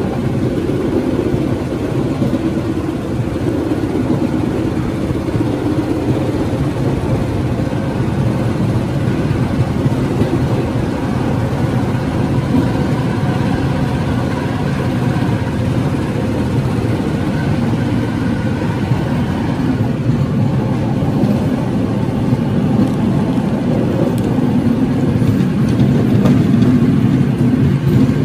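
Vehicle engine running steadily, growing a little louder near the end.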